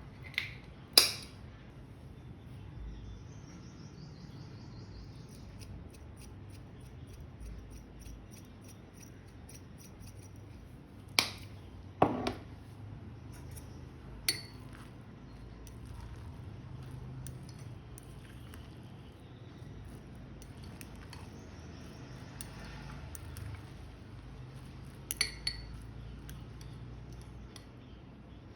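Sharp clinks of a metal utensil against dishware, a few at a time: two near the start, two more around the middle, one shortly after, and a close pair near the end, over a faint steady hum.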